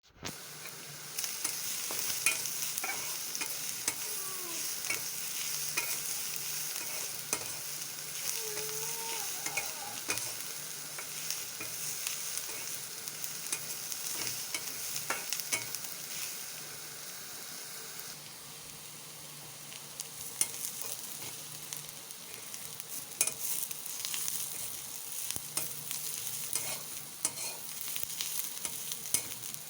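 Food sizzling as it fries in a pan, with frequent clicks and scrapes of a spatula stirring it. The sizzle eases a little about two-thirds of the way through.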